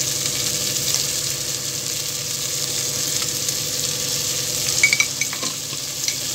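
Chopped onions and tomatoes sizzling steadily in hot oil in an aluminium pot, with a brief clink about five seconds in.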